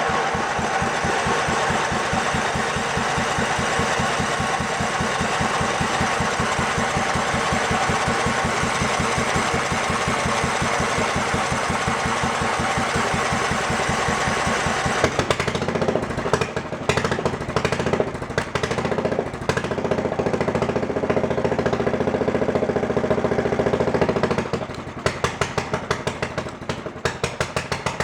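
Riding mower engine running without its muffler, at first with a steady, even beat. About halfway through it starts to stumble and sputter unevenly, and near the end it breaks into a string of separate pops. The owner puts the rough running and popping down to the missing exhaust upsetting the back pressure.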